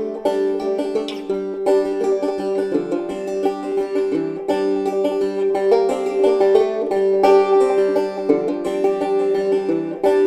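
Background instrumental music with quick plucked notes over a steady held tone.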